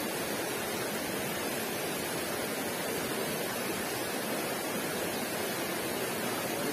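Steady rushing of a shallow river's flowing water, an even hiss with no breaks.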